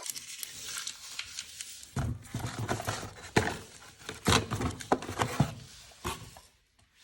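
Irregular clicks and knocks, handling sounds of small hard objects, with a few heavier thumps in the middle before they die away near the end.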